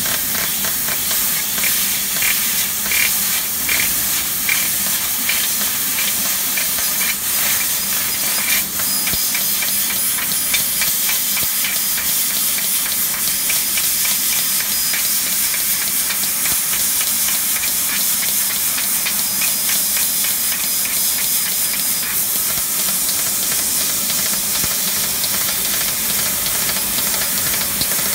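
1500 W CNC fiber laser cutting sheet metal: a steady loud hiss of the assist-gas jet at the cutting head, with irregular crackling over the first several seconds, over a steady low machine hum.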